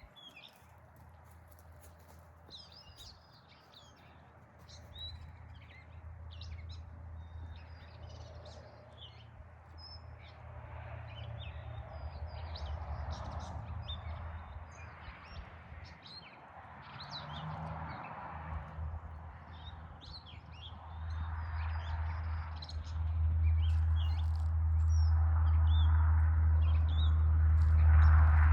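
Birds chirping and calling repeatedly, with a low steady rumble underneath that grows louder through the second half.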